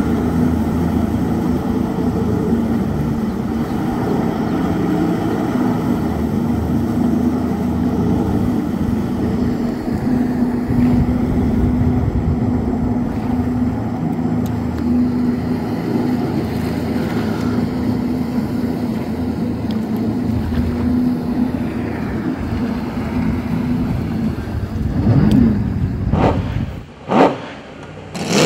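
Supercharged Rotax 300 three-cylinder engine of an aluminium jet boat running steadily at speed on the water. Near the end the engine note rises and falls a couple of times.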